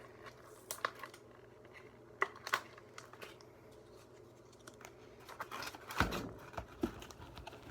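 Packaging being opened by hand: scattered short scrapes, clicks and rustles, busier near the end, with a low knock about six seconds in.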